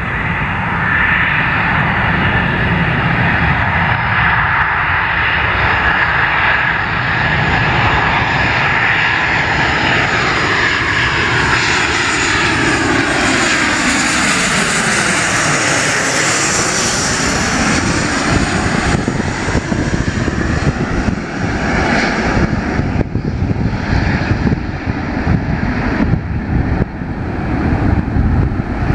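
Boeing 737-800 jet engines on final approach, a steady loud whine and roar that sweeps down in pitch as the airliner passes low overhead. The high hiss then falls away, leaving a lower rumble as it flies on toward the runway.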